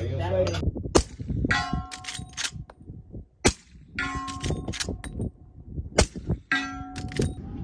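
Three suppressed gunshots about two and a half seconds apart, from a suppressed shotgun. About half a second after each shot a steel target rings with a clear tone for most of a second.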